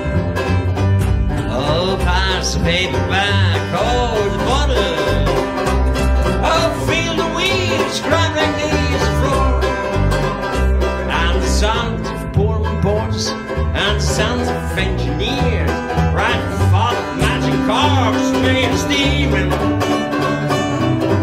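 Instrumental break of an acoustic trad-jazz/folk band: five-string banjo strumming the chords over plucked double-bass notes, with a woodwind carrying a bending, wavering solo melody above.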